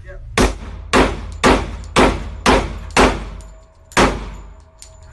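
Semi-automatic pistol fired seven times in an indoor shooting range. Six shots come about half a second apart, then a last one after a pause of about a second, each with a short echoing tail.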